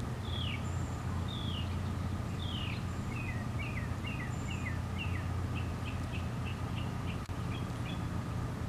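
A songbird singing a run of short down-slurred chirps, slow at first, then quicker and shorter notes through the rest, over a steady low background rumble.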